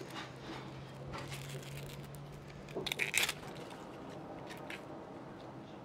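Small knife cutting and peeling an onion: the papery skin crackles and tears in short scrapes, with a louder cluster of crackles about three seconds in.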